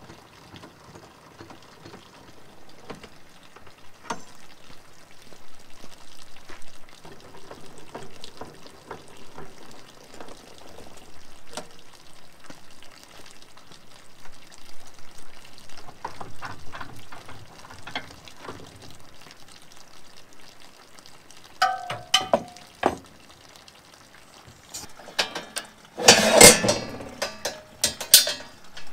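Water splashing and trickling among irregular knocks and handling clatter, with a louder burst of clattering near the end.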